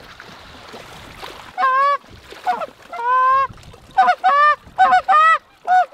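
A flock of geese flying overhead, honking: about eight loud honks in quick succession from about a second and a half in, with wind hiss before them.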